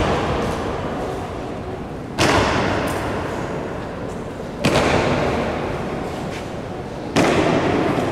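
Honour guard's boots stamping in unison on a stone floor in slow ceremonial goose-step: three loud stamps about two and a half seconds apart, each followed by a long echo in the large hall.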